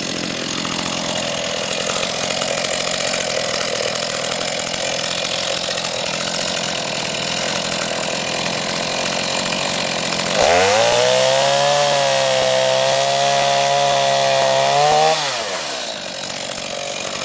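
Chainsaw running and cutting through a log. About ten seconds in, the engine revs up to a high, steady pitch for about five seconds, then drops back down.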